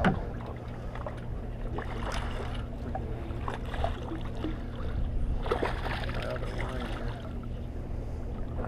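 Hooked striped bass splashing at the surface beside the boat hull as it is reeled in, a few irregular splashes, over a steady low hum.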